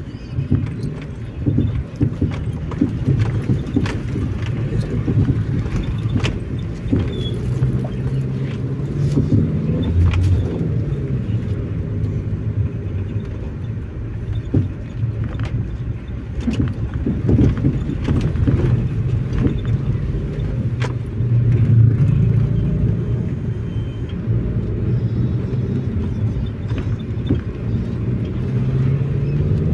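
Car driving, heard from inside the cabin: a steady low rumble of engine and road noise whose pitch drifts up and down with speed, with occasional light clicks.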